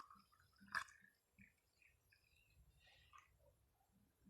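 Near silence: room tone, with one faint brief click a little under a second in.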